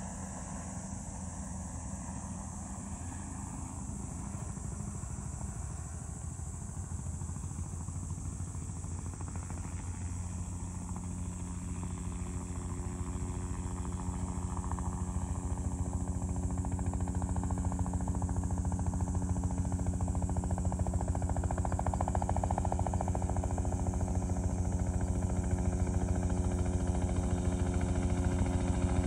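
Bell 505 Jet Ranger X helicopter, with its Safran Arrius turboshaft, flying toward the listener. The rotor's fast steady beat and the engine tones grow steadily louder, and higher tones join in about ten seconds in as it comes closer.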